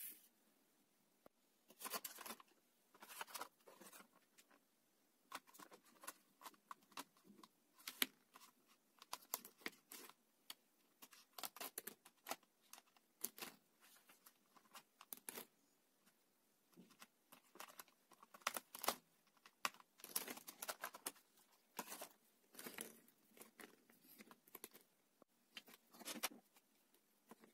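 Hands handling art supplies on a desk: intermittent quiet rustling and crinkling of paper and plastic, with light taps and clicks as acrylic paint tubes and a plastic palette tray are set down on a cutting mat.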